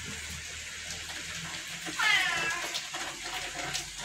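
A cat meowing once, loudly, about halfway through: a drawn-out call that falls in pitch, with another meow starting just at the end.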